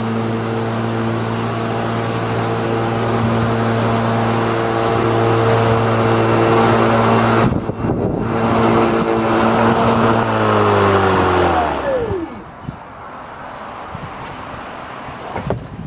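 Murray 18V cordless lawn mower's electric motor and blade running at a steady hum while cutting grass, then spinning down over a second or two, about ten seconds in, as the handle is released and the motor stops. A few light knocks follow near the end.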